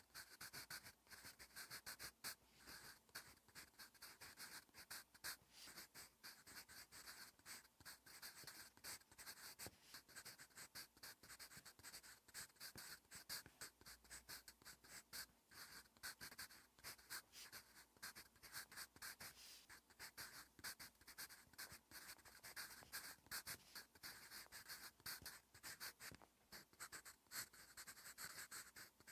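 Wooden graphite pencil scratching quietly on lined paper while writing Korean handwriting, a dense run of quick short strokes with tiny gaps between them.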